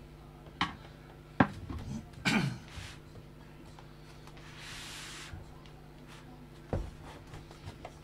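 Sharp plastic clicks and knocks with a brief scrape as a flat screwdriver pries at the clips of an all-in-one computer's plastic back cover. The loudest click comes about one and a half seconds in, with another knock near the end, over a steady low hum.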